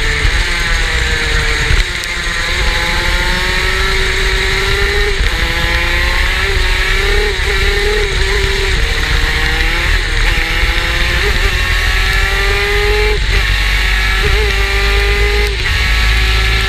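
Superkart's two-stroke engine running hard. Its pitch dips sharply as the throttle is lifted, about two seconds in and several more times, and climbs again as it pulls back up. A steady low rumble runs underneath.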